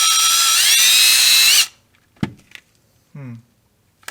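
Electric drill running with a larger bit, its whine stepping up in pitch twice as it speeds up, then stopping about one and a half seconds in; a few small clicks follow. It is boring out the hole in the shifter end link so a thicker selector rod will fit.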